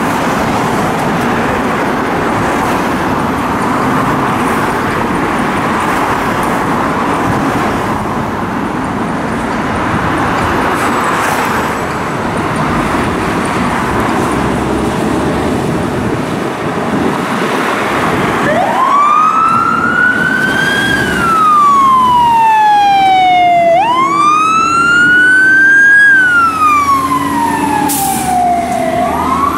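Fire truck engines running with road traffic noise. About two-thirds of the way in, a fire engine's wail siren starts, rising and falling in slow sweeps of about five seconds, and is the loudest sound from then on.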